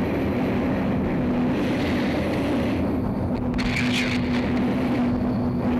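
Cockpit noise of a Canadair CT-114 Tutor jet in flight: the single turbojet's steady drone with a low hum, mixed with the rush of airflow. A brief higher, wavering sound is heard about four seconds in.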